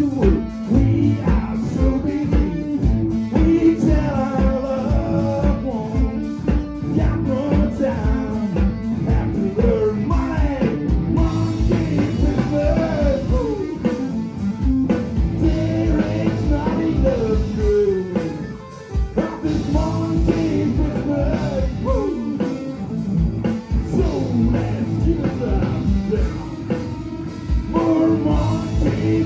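Rock band playing live with a singer: vocals over electric guitar and drum kit, in a blues-rock style.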